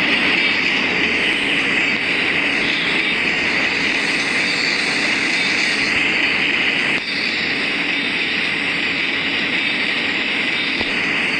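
Philippine National Railways train running past: a loud, steady noise of wheels on rails, with a strong high-pitched ringing hiss over the lower rumble.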